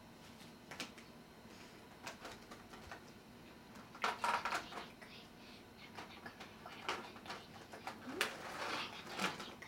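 Small plastic toy pieces and their packaging being handled: scattered light clicks and rustles, busiest about four seconds in and again near the end.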